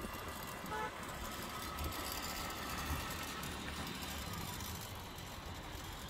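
Road traffic on a busy city street: a steady rumble of passing cars and engines, with a short car-horn toot just under a second in.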